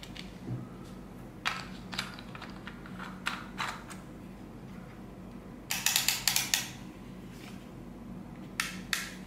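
Plastic clicks and rattles from a clamp-style car phone holder being handled, with its parts knocking and snapping. There are scattered single clicks, a quick run of clicks about six seconds in, and two more near the end.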